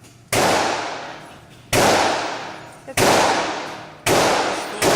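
Five gunshots about a second apart, each loud and sudden with a long echoing tail in the enclosed indoor range.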